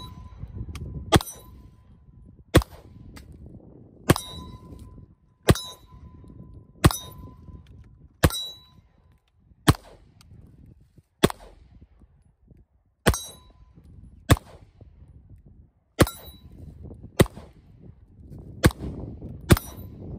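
Smith & Wesson M&P 2.0 9mm pistol with a 4.25-inch barrel fired one shot at a time, about fourteen shots roughly a second and a half apart, with two closer together near the end. Most shots are followed by the ring of a steel plate target being hit.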